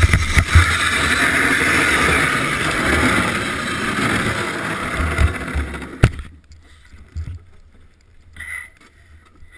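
Bobsleigh runners sliding on the ice, a loud steady rushing scrape with wind on the sled-mounted microphone, fading as the sled slows in the outrun. A single sharp knock comes about six seconds in, and after it the sled is much quieter.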